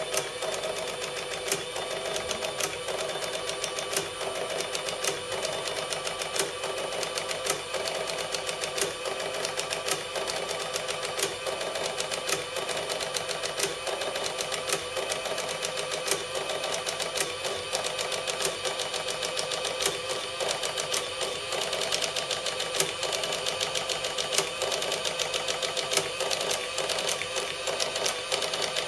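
Sharp XE-A102 cash register's built-in receipt printer printing out the till's program report: a steady mechanical chatter of rapid clicks.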